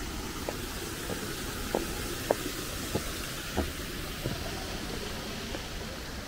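Footsteps at a walking pace, a short knock about every two-thirds of a second, over a steady outdoor hiss.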